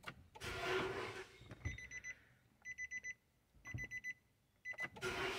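Nissan car's in-cabin warning chime beeping in short rapid trains, about one train a second, with the ignition switched on and the battery boosted by a portable jump starter. A louder noise sets in right at the end as the engine is cranked.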